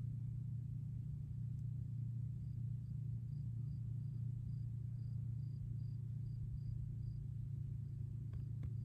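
Faint, evenly spaced insect chirps, about two or three a second, over a steady low hum.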